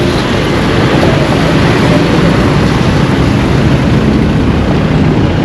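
Road traffic: a motor vehicle's engine running close by over steady road rumble.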